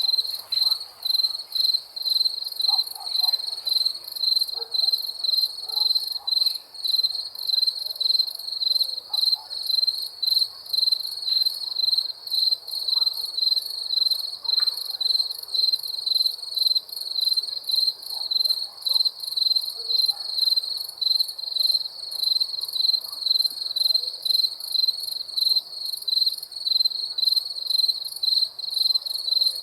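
Cricket chirping: a high-pitched trill pulsing in a steady, even rhythm of short chirps, several a second.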